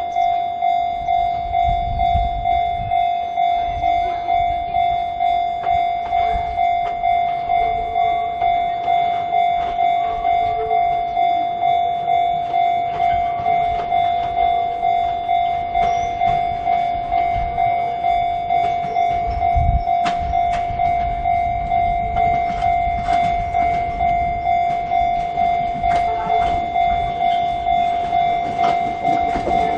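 Japanese level-crossing electronic warning alarm of the Chichibu-type tone, ringing steadily at about two strokes a second, over the low rumble of an approaching train that grows louder near the end.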